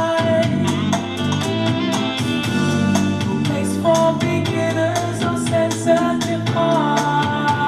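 A song with a held sung or sax-like melody over drums, bass and guitar, played through the Samsung LS03F Pro TV's built-in speakers.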